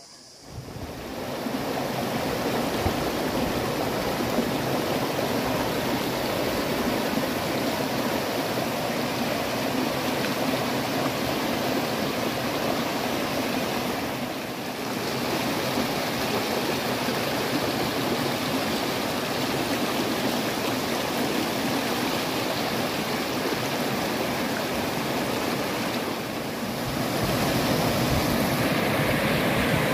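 Water of a shallow rocky stream rushing and splashing over boulders, a steady rushing noise. It comes in about half a second in, dips briefly twice, and is louder near the end.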